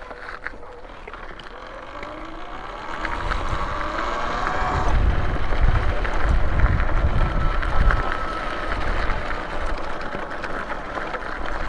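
Talaria Sting R electric dirt bike's motor whining, the whine rising in pitch for a few seconds as the bike accelerates, with wind rumbling on the microphone once it is moving.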